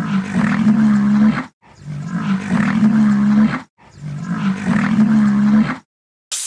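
Rhinoceros calling: three long calls at a steady pitch, each about two seconds, with short breaks between them. A hiss starts right at the end.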